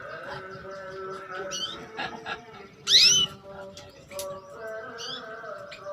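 Female canary giving short sweeping 'cuit' call notes, a few spaced seconds apart, the loudest about three seconds in. A steady, slightly wavering lower tone runs underneath.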